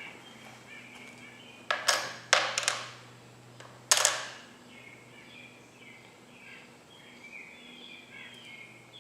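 A handful of sharp clicks and clatters, most of them close together a couple of seconds in, with one more around four seconds, as small parts are handled, with birds chirping faintly in the background.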